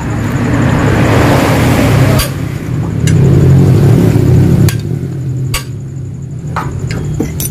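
Yamaha RX-King two-stroke single-cylinder engine revved twice through its gutted exhaust, dropping back to a lower rough running between and after, with a few sharp cracks. The hollowed-out muffler gives the raspy, growling exhaust note.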